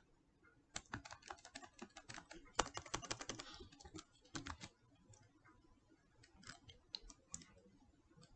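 Typing on a computer keyboard: a quick run of keystrokes from about one to five seconds in, then scattered single key presses.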